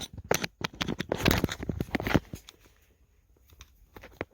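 Screwdriver bits and a ratcheting screwdriver being handled: a quick run of light clicks and rattles over the first two seconds, then only a few faint taps.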